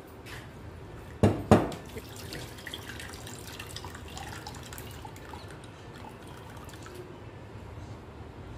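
Two sharp knocks about a second and a half in, then water trickling and dripping as rinse water is drained off a bowl of soaked chana dal (split chickpeas) into a plate.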